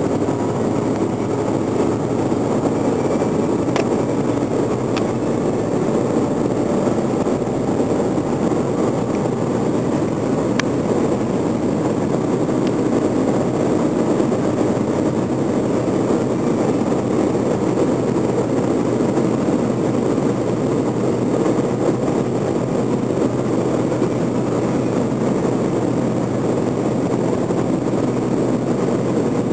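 Steady cabin noise inside a BMW E90 3 Series at high Autobahn speed: engine, tyre and wind noise blended into one even drone, with a low steady hum underneath.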